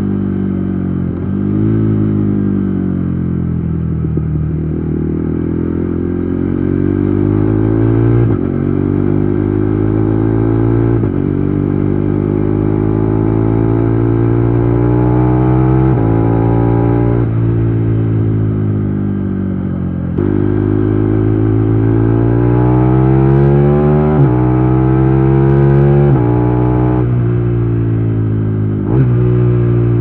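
KTM Duke 390 Gen 3 single-cylinder engine running through an aftermarket Akrapovič exhaust under hard acceleration. Its note climbs and then drops sharply at each gear change, over several shifts in a row.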